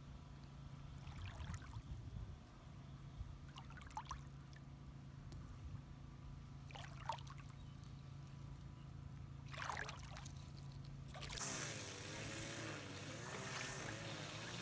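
Faint trickling and lapping of a shallow, clear river over stones, with a few short gurgles. About eleven seconds in, background music starts.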